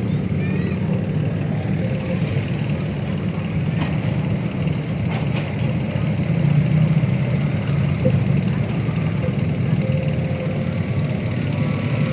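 Steady city street traffic: a continuous low engine rumble of passing vehicles, with a few faint clicks.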